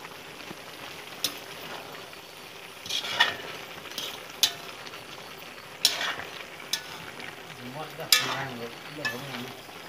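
Beef frying in a steel kadai, sizzling steadily while a metal spoon stirs it, with about half a dozen sharp clinks and scrapes of the spoon against the pan.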